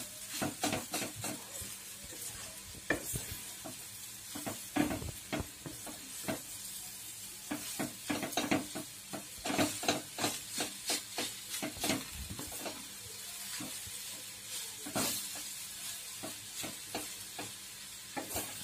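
A wooden spatula stirs grated sweet potato and sugar in a nonstick kadhai, making a run of uneven scraping, knocking strokes against the pan. Under the strokes is a steady sizzle of the sweet potato frying in ghee.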